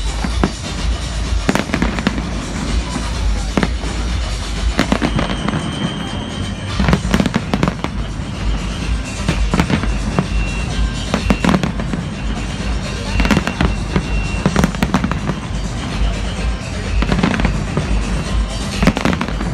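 Fireworks display: aerial shells bursting in repeated, irregular bangs, with crackling between the bursts.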